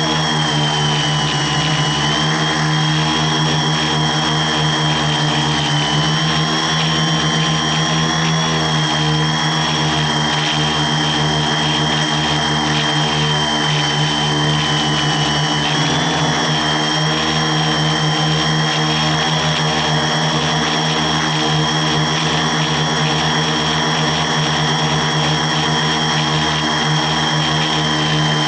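Quadcopter's electric motors and propellers running in flight, picked up by a camera mounted on the craft: a loud, steady buzz with a high whine that wavers slightly in pitch a few times as the throttle changes.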